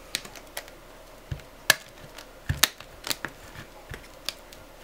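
Light clicks and taps from the metal frame and plastic parts of a 7-inch LCD panel as it is handled and pressed back together, about a dozen sharp ticks at irregular spacing, with two louder snaps near the middle.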